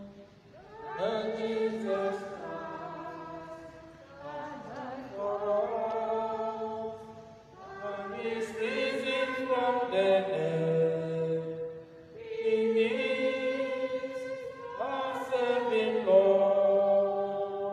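A choir singing a slow, chant-like sung response of the Mass after the consecration, in several held phrases with short breaks between them.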